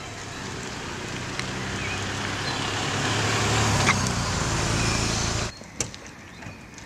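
Peugeot 307 hatchback driving past close by, its engine and tyre noise growing louder as it nears, then cutting off suddenly about five and a half seconds in. A single sharp click follows shortly after.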